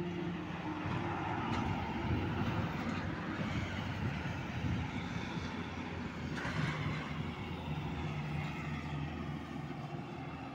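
Heavy tanker truck's diesel engine droning steadily as it drives past, with a constant rumble of tyres on the road. A brighter swell of noise comes in about six seconds in, and the engine tone settles a little lower in pitch in the second half.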